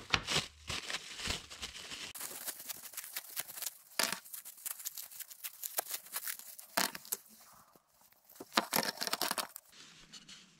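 Clear plastic cling film crinkling and tearing as it is peeled off freshly glued wooden blocks, in irregular crackles with a short lull about three-quarters of the way through.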